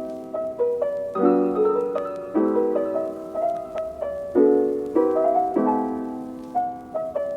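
Solo piano background music: gentle chords and melody notes, each struck note fading away before the next.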